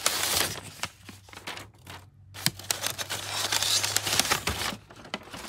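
Brown kraft packing paper crinkling and rustling as it is pulled and crumpled out of a cardboard box, in two spells with a short pause about two seconds in.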